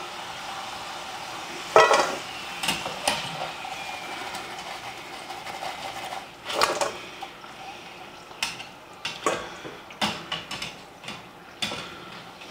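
Metal utensil clinking and scraping against a pot and a stainless steel bowl while fries are lifted out of hot oil, about ten separate clinks with the loudest about two seconds in. A steady faint hiss of the frying oil runs underneath.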